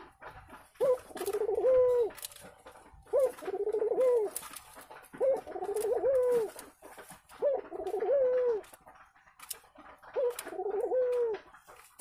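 Ringneck dove cooing in the nest: five repeated coo phrases about two seconds apart, each opening with a sharp rising note and then a wavering low coo. This is courtship calling by a pair in the nest basket, which the keeper takes as a sign that egg-laying is near.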